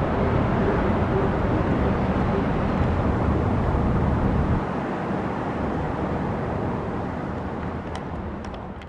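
Steady, noisy outdoor rumble with no siren tone in it. It drops a little about halfway through and fades out at the very end.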